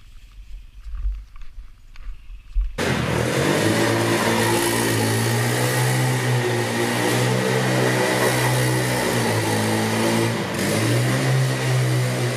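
A few footsteps crunching through snow and wet grass. About three seconds in, a quad bike's engine cuts in suddenly, running loud and revving up and down.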